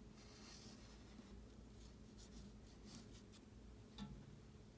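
Faint pencil strokes scratching on paper, with a single light tap about four seconds in.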